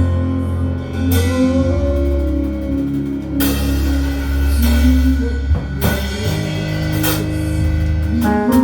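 Live church worship music: long sustained chords over a steady bass, with drums and a few ringing cymbal crashes.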